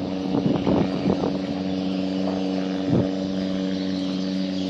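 A boat engine running at a steady speed, with a steady drone. A few short knocks sound in the first second or so, and one more about three seconds in.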